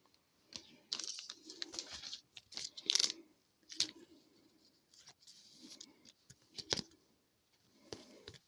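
Trading cards being handled: irregular papery rustles as card stock slides and shuffles, with a few sharp clicks and crinkles.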